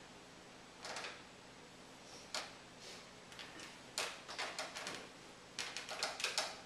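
Quiet room with scattered short clicks and knocks, a few single ones early and quicker clusters in the second half.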